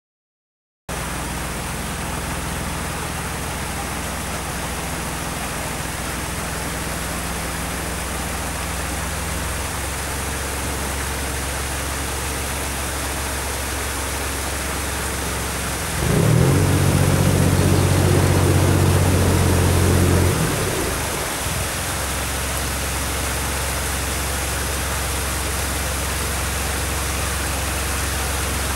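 Narrowboat's diesel engine running steadily under a constant hiss. Its note shifts about ten seconds in, and from about sixteen to twenty seconds it runs louder and fuller before settling back.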